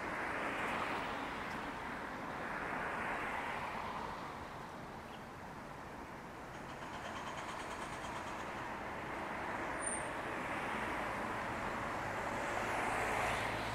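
Road traffic passing on a busy city street: a steady rush of tyre and engine noise that swells and fades as vehicles go by.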